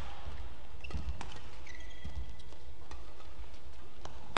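Badminton doubles rally: rackets striking the shuttlecock in sharp cracks, a quick cluster about a second in and another hit near the end, with a short shoe squeak on the court floor in between, over a steady low hum.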